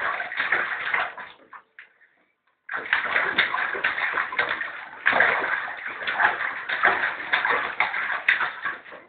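A small child splashing bathwater in a bathtub, slapping the water with both hands in rapid, irregular slaps and sloshes. The splashing stops for about a second shortly after the start, then resumes and keeps going.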